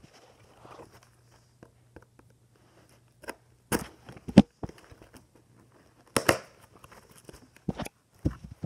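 A parcel's packaging being torn open and handled: scattered tearing, crinkling and knocking, loudest in bursts about four and six seconds in.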